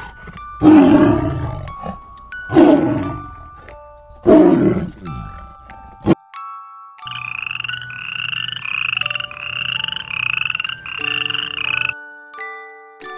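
A tiger growling three times, each call about a second long and falling in pitch; these are the loudest sounds. About halfway through there is a click, then a run of about seven rasping, croak-like calls in quick succession, over light chiming music.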